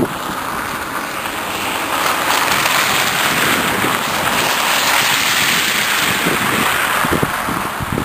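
Cars driving through snow and slush, the tyre hiss swelling as one passes close about five seconds in, with wind buffeting the microphone toward the end.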